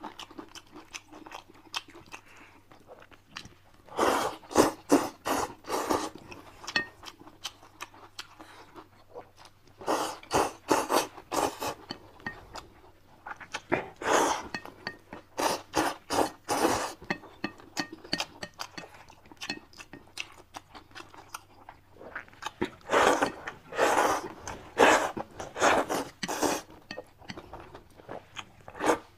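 Close-miked eating sounds: loud, rapid chewing and crunching in four bursts of a few seconds each, with quieter mouth clicks between.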